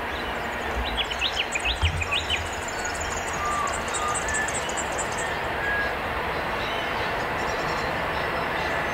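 81 class diesel locomotive approaching at a distance at the head of a ballast train, a steady low rumble. About a second in, a bird calls a quick run of short falling chirps.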